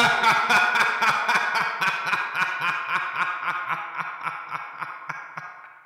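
A cartoon tiger's long, echoing villain's laugh, a run of evenly paced "ha" pulses about four a second that slowly fades away.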